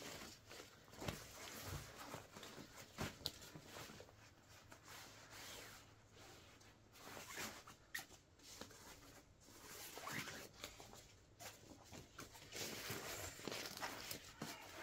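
Fabric of a Wellensteyn Schneezauber winter jacket being torn: faint, irregular rasping strokes of uneven length with a few sharp clicks.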